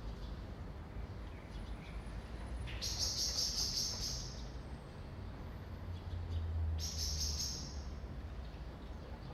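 Birds chirping over a steady low rumble of distant city traffic. Two bursts of fast, high trilled chirps stand out, one about three seconds in and one about seven seconds in, with faint thin high notes between them.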